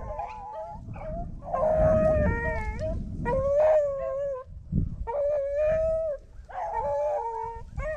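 Rabbit-hunting dogs baying in long, drawn-out howling bawls, one after another, with more than one voice overlapping near the end: the dogs are running a rabbit.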